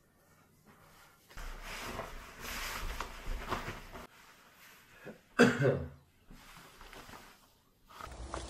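Cycling clothing rustling as it is pulled on, then about five and a half seconds in a short, loud cough-like vocal sound from the person dressing. A steady noise begins near the end.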